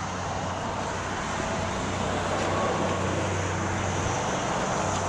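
A steady low engine hum, as of a vehicle running or idling, over steady road-traffic noise.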